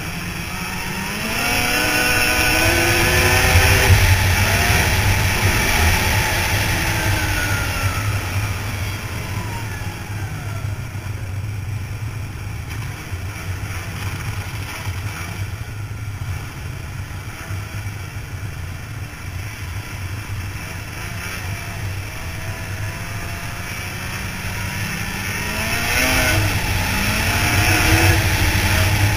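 Ski-Doo Formula 500 two-stroke snowmobile engine under way, revving up hard about a second in, easing off, then cruising before revving up again near the end.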